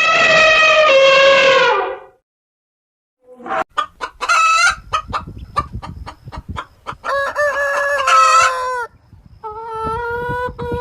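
Chickens clucking and a rooster crowing, in a string of short choppy calls and drawn-out crows. In the first two seconds there is a separate long, loud animal call.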